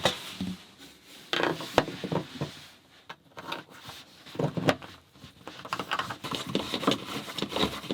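Scattered knocks, clunks and rubbing as fittings are handled and set down on a wooden countertop in a small room.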